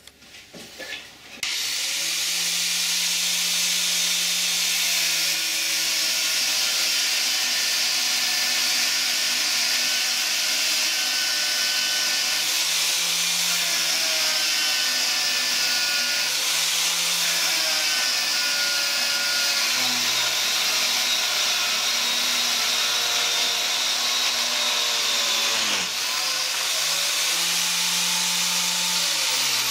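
Angle grinder mounted in a cut-off stand, switched on about a second and a half in and running with an abrasive cut-off disc slicing through a steel socket extension bar. The motor's pitch sags several times as the disc is pressed into the cut.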